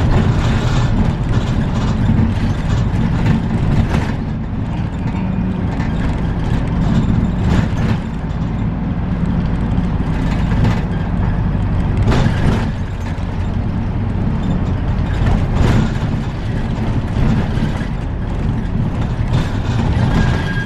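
City bus's diesel engine and drivetrain running steadily as it drives along a winding road, heard from inside the cabin near the driver, with scattered knocks and rattles every few seconds.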